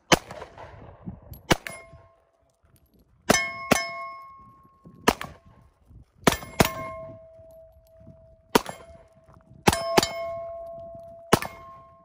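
Pistol shots fired singly and in quick pairs, about a dozen in all. Many are followed by the ringing of struck steel targets, a clear metallic tone that hangs for a second or more after each hit.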